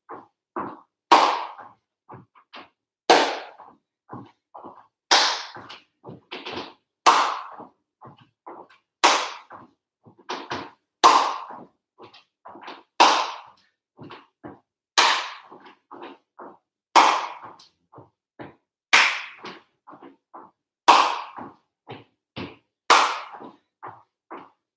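Sharp hand claps about every two seconds, with softer footsteps of shoes on wooden floorboards between them, from a person stepping side to side and together.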